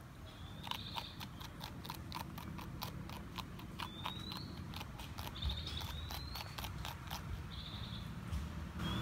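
Porcupine chewing crisp leafy greens: a close, quick run of wet crunches and bites. A few short, high, rising chirps are heard between them.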